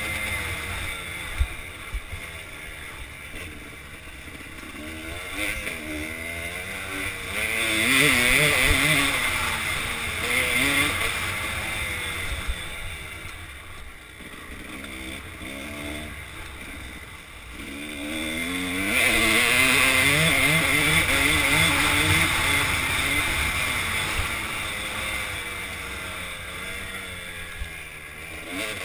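Kawasaki KDX200 two-stroke single-cylinder dirt bike engine riding a trail, revs rising and falling repeatedly as the throttle is worked. It opens up loudest about eight seconds in and again from about nineteen to twenty-three seconds in.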